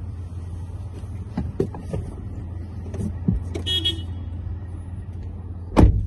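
A person getting into a car's driver's seat: scattered knocks and rustles, then the car door shutting with a heavy thump near the end, the loudest sound. Under it runs a steady low hum from the car, and a brief high tone sounds about two-thirds of the way through.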